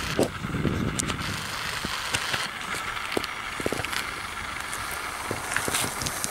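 Wind rumbling on the microphone, with scattered clicks and knocks from the handheld camera being moved to follow the model airplane overhead.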